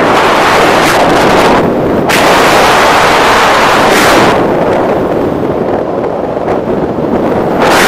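Wind buffeting the microphone of a camera carried on a paraglider in flight: a loud, rough rushing and rumbling. The hiss thins out for about three seconds past the middle and comes back near the end.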